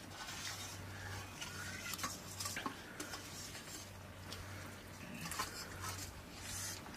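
Quiet eating sounds from people eating rice by hand off metal plates: scattered light clinks and scrapes of fingers and plates, over a steady low hum.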